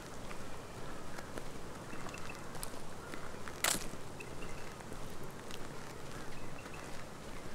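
Footsteps crunching along a dry bush track, with birds giving short chirps of two or three notes every couple of seconds. One louder sharp crackle sounds a little past halfway.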